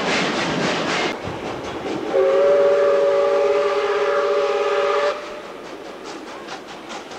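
The steam whistle of ex-South Australian Railways 520-class steam locomotive No. 520 sounds one chord of several notes, held for about three seconds. Before it, the running train gives a quick, even beat of about five knocks a second. After the whistle, the train is heard running more faintly.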